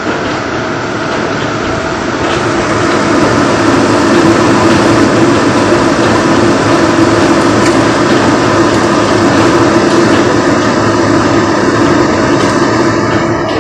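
Kitchen fan over the stove running with a steady whirring hum, growing louder over the first few seconds and then holding level.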